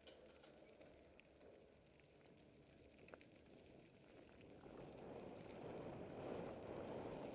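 Faint rush of wind on the microphone mixed with mountain bike tyres rolling over a gravel trail, with scattered small clicks and rattles; the rush grows louder about two-thirds of the way in.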